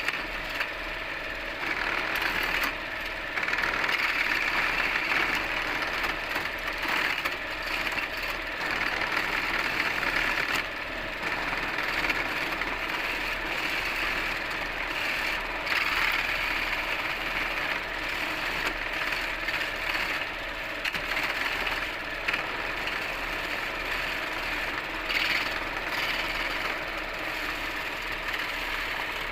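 Wood lathe running with a steady motor hum, while a tool cuts into the spinning wood; the cutting noise comes and goes in stretches, breaking off briefly a few times.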